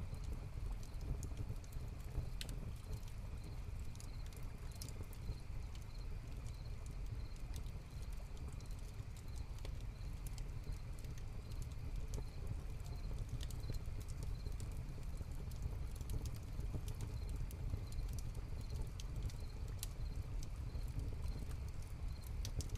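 Hearth fire crackling with scattered sharp pops, over crickets chirping in a steady high-pitched rhythm and a constant low rumble.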